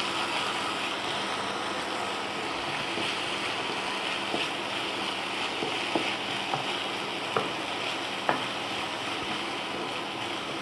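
Chopped onions frying in hot oil in a kadai: a steady sizzle, with a few light clicks of a spatula against the pan in the second half.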